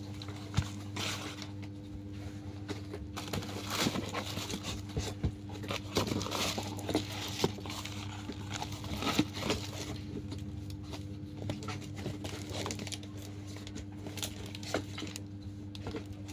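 Packaging being handled while glasses are unboxed: intermittent crinkling and rustling with small scattered clicks and knocks, over a steady low hum.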